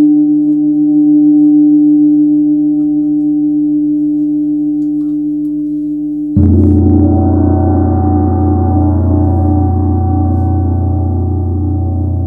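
Large hammered Tibetan gong ringing on one steady humming tone that slowly fades, then struck once with a large padded mallet about six seconds in, opening into a loud, deep, many-toned ring that slowly dies away.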